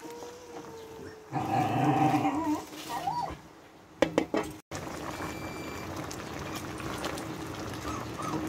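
A dog whining and yelping, loudest from about one and a half to two and a half seconds in, with a short clatter about four seconds in as a lid is handled over the pan.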